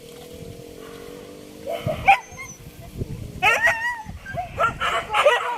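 Hunting dogs yelping and baying, several high, excited voices overlapping, starting about two seconds in and growing busier after three seconds.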